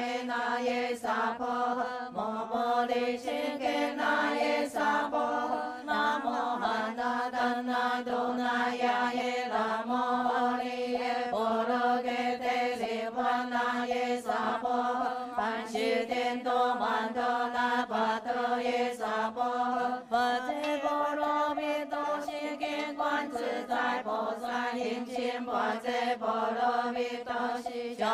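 A group of voices chanting Buddhist scripture in unison, in a slow sung recitation of long held notes that step between pitches. Regular light percussive taps run under the voices.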